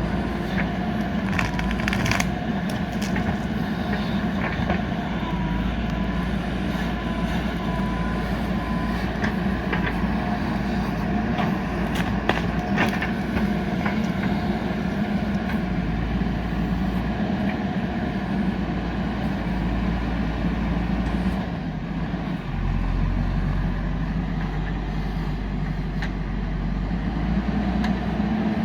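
JCB 3DX backhoe loader's diesel engine running steadily under working load, with scattered sharp knocks and cracks of rock against the bucket, clustered near the start and around the middle.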